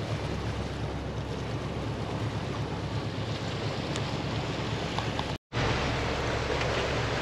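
Boat under way at sea: a steady low engine hum under the rush of water from the wake and wind on the microphone. The sound drops out completely for a split second about five seconds in, then carries on the same.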